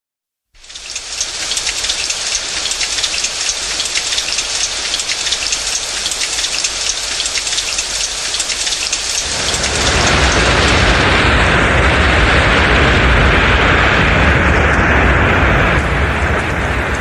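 Rain falling, a steady hiss of fine pattering drops that fades in just after the start. About nine and a half seconds in it turns heavier and louder, with a low rumble beneath.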